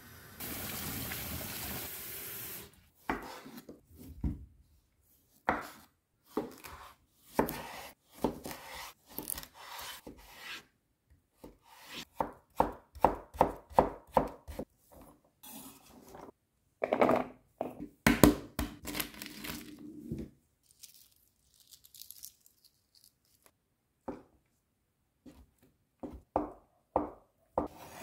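Water boiling in a saucepan with eggs in it, a steady hiss for the first couple of seconds. Then a chef's knife chopping cucumber on a wooden cutting board in quick runs of strokes with short pauses, and near the end cuts through boiled eggs on the board.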